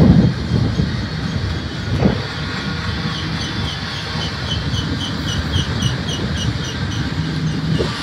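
Double-stack container train of well cars rolling past at close range: a steady rumble of steel wheels on rail, with a single knock about two seconds in. From about three seconds in, a rapid, even run of high chirps rides over the rumble.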